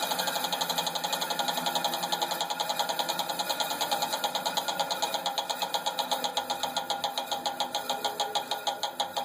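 Laguna 14|12 bandsaw coasting down after switch-off, with a rapid, regular clicking from inside the wheel housing, once per turn, that slows gradually as the wheels lose speed.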